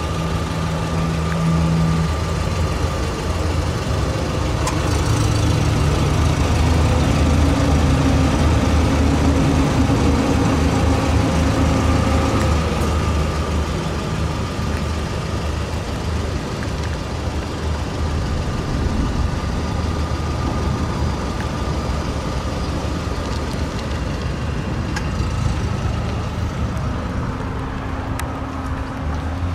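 2014 Haima M3's engine idling steadily, a low even hum.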